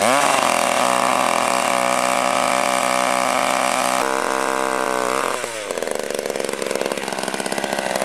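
Gas-powered ice auger's two-stroke engine running at high revs as it bores through the ice. About five seconds in the revs drop and the engine runs lower and uneven as the auger is lifted out of the hole.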